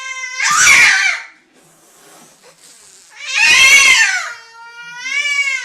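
A cat yowling: a drawn-out wail, two loud harsh screeches, then another wavering wail near the end.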